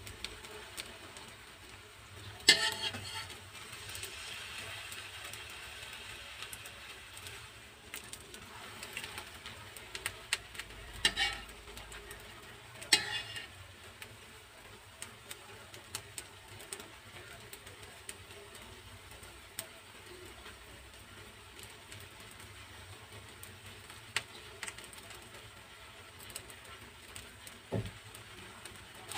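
Metal slotted spatula scraping and knocking against a non-stick wok as an omelette is pressed and turned, with three sharp clatters, one a few seconds in and two close together around the middle, over a faint sizzle of frying oil.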